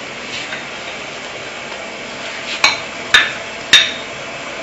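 Kitchenware clinking three times, about half a second apart, each with a brief ring.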